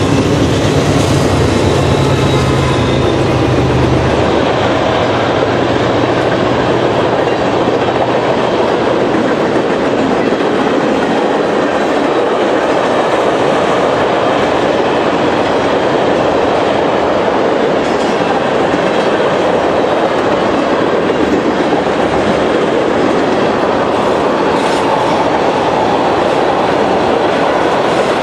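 Freight train passing close by: the diesel locomotives' engine drone fades over the first few seconds, then a long string of tank cars goes by with a steady rolling noise of steel wheels on the rails.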